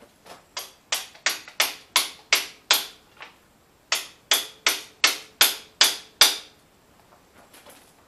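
Steel hammer blows driving a loose pivot bushing through the Diggit EM15's bucket linkage, ringing metal on metal at about three strikes a second. There are two runs, nine blows and then seven, with a short pause between them.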